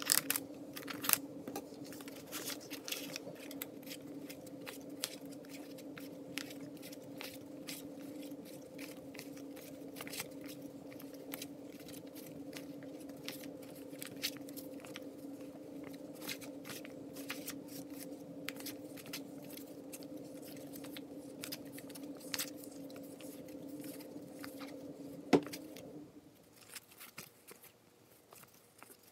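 Paper banknotes (a stack of five-dollar bills) being counted by hand, each bill moved off the stack with a crisp rustle and snap, over a steady low background hum that cuts off suddenly near the end.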